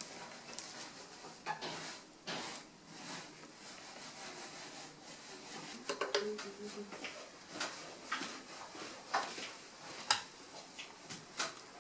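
Scattered light taps, clicks and scrapes of handwork on a leaded stained-glass panel at a wooden workbench, with the sharpest click about ten seconds in.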